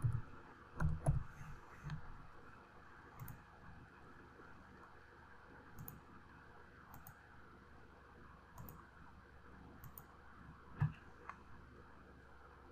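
Computer keyboard keys tapped a few times in quick succession, then single mouse clicks every second or two, the loudest near the end.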